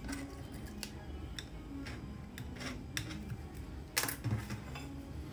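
Light clicks and taps of a china plate being handled on a stack of pastilla sheets on a stone countertop, with a louder sharp knock about four seconds in.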